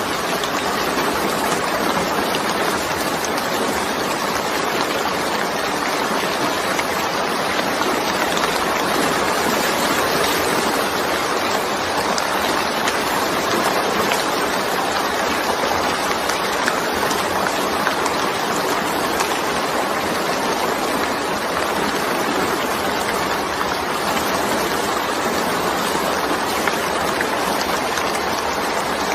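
Steady rain falling, a dense even hiss that keeps up without any separate drips, thunder or other events.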